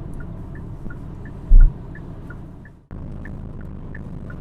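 Steady road and drivetrain rumble inside the cabin of a 2022 Hyundai Kona cruising at about 60 km/h, with the turn signal ticking in a tick-tock pattern about three times a second. There is one heavy low thump about a second and a half in, and the audio drops out briefly just before three seconds.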